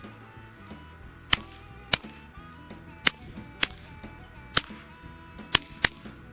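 Seven suppressed shots from a .22 LR pistol firing subsonic rounds through a Mack Brothers Vapor suppressor, each a short sharp crack, about half a second to a second apart. Faint background music plays underneath.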